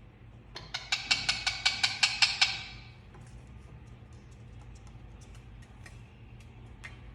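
Indian ringneck parrot making a quick run of about ten sharp kissing smacks over roughly two seconds, with faint scattered clicks before and after.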